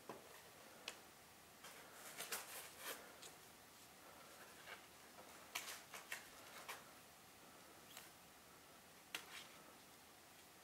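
Faint handling noises: scattered light clicks and paper rustles as a paper target and the contents of a foam-lined box are handled, in two short clusters with a few single clicks.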